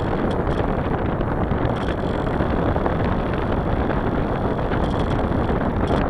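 Steady rush of wind over the camera microphone of a small aircraft in flight, an even roar with no breaks.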